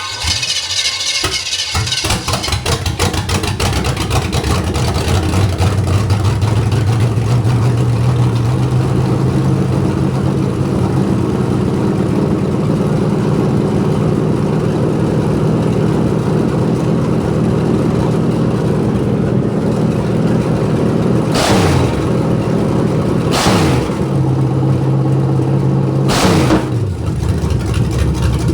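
Cold 1973 Chevrolet 350 small-block V8 with a big cam cranks and catches at once, without the gas being pumped. It settles into a steady fast cold idle set by the carburetor's cold idle screw. Near the end the engine is revved briefly three times, each time falling back to idle.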